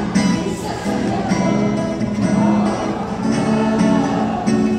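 Live band music with acoustic and electric guitars playing.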